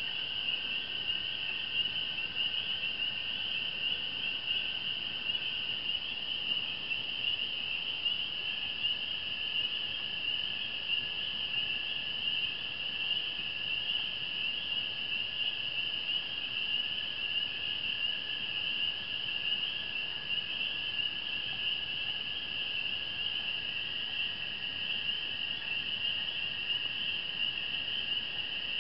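A dense, unbroken chorus of small frogs calling together, a continuous high-pitched peeping, with a fainter lower-pitched call running beneath it.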